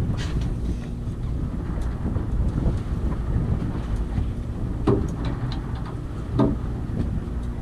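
Wind buffeting the microphone on an open fishing boat, over a steady low rumble, with two short knocks in the second half.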